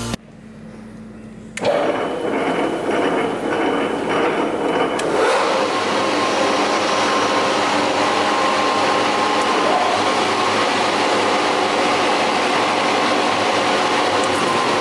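Kupfermühle 70 four-sided planer-moulder starting up: its motors come on suddenly about one and a half seconds in, the sound filling out again around five seconds in, then the cutter spindles run steadily at speed with a hum of several held tones.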